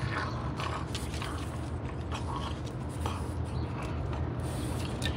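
A French bulldog gnawing on a hard chew stick: scattered small clicks and scrapes of teeth on the chew, over a low steady rumble.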